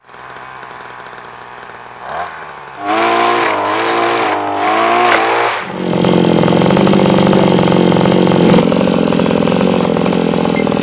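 Small two-stroke engines of motorized oil palm harvesting poles: running at lower level at first, revving up and down from about three seconds in, then running steadily at high speed from about halfway.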